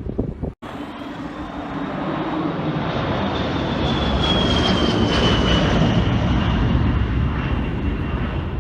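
Fixed-wing aircraft passing low overhead: its engine noise swells to a peak about five seconds in and then eases off, with a high whine slowly falling in pitch as it goes by.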